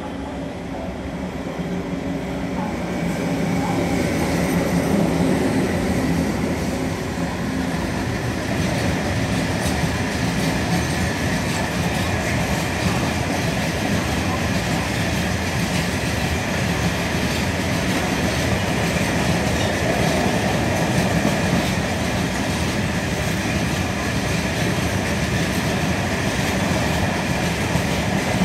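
Freight train hauled by two electric locomotives running through a station without stopping. It grows louder over the first few seconds as the locomotives pass, then becomes a long, steady run of empty steel-coil wagons rolling by with continuous wheel clatter on the rails.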